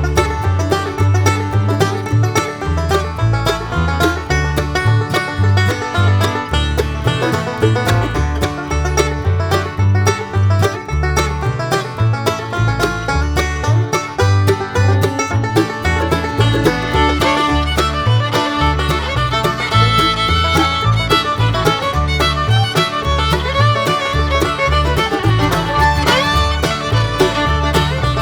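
Upbeat bluegrass-style background music with banjo and fiddle over a steady bass beat.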